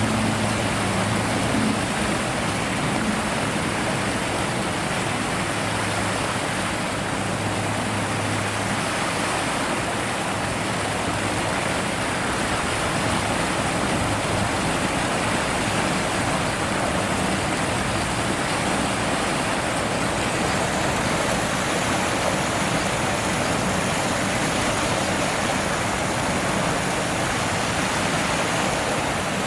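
Water pouring over the concrete steps of a moat, a steady rushing that does not let up. A low hum runs underneath for the first several seconds, then fades out.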